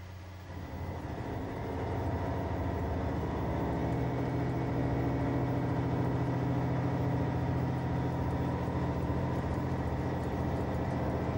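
A motor vehicle's engine droning steadily as it drives. It swells in about half a second in and then holds an even level.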